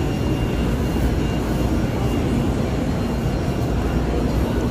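Steady din of a large machinery exhibition hall: an even low rumble with a few faint steady high whines from running equipment.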